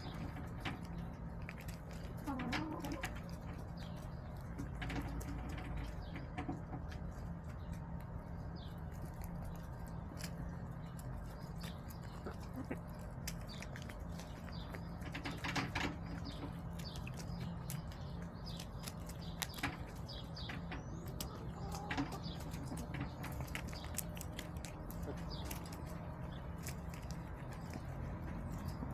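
Backyard hens pecking at scattered food close to the microphone: many quick, sharp taps of beaks on the ground, with occasional clucks. A steady low hum runs underneath.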